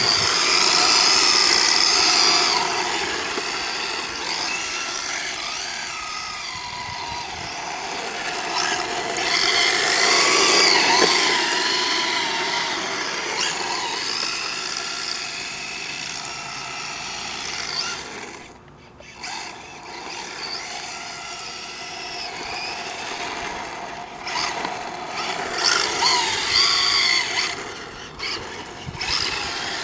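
Electric motor and drivetrain of a 1/10-scale Exceed RC Madspeed Drift King drift car whining, the pitch rising and falling with the throttle as it drifts. The whine drops away briefly a little past halfway, then builds again.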